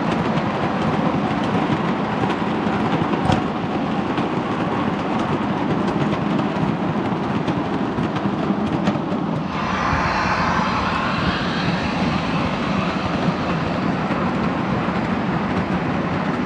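O-scale model freight cars rolling over three-rail track, a steady rumble of wheels on rail. About ten seconds in, a brighter hiss joins the rumble.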